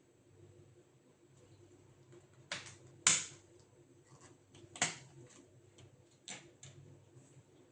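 Sharp clicks and taps of tools and plastic parts being handled as a laptop is taken apart: four louder clicks, the loudest about three seconds in, among lighter ticks.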